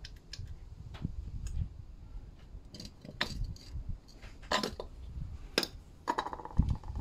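Scattered metallic clinks and knocks from the parts of a front shock absorber strut assembly, including its top mount, being handled and set down on concrete, a few with a short ringing.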